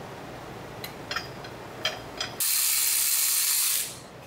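A few ratchet clicks, then a power ratchet runs for about a second and a half with a steady, hissing whir, spinning out a bolt on the Supra's drive shaft joint.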